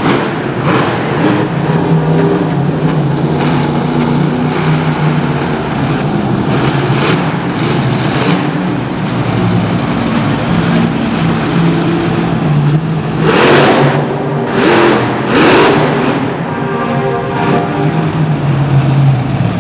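Krazy Train monster truck's supercharged V8 running with a steady drone, then opened up in three loud throttle surges about two-thirds of the way through.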